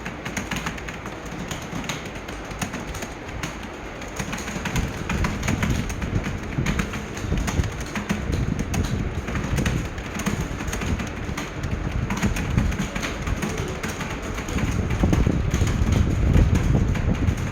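Several computer keyboards being typed on at once: a dense, irregular clatter of key clicks during a timed typing-speed test. Under it runs a low rumble that grows louder towards the end.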